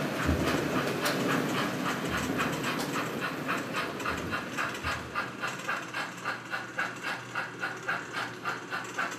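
Märklin HO-scale model trains: the running rumble of a model train on the track, giving way about midway to the steady steam chuffing of an approaching model steam locomotive, about three beats a second with hiss.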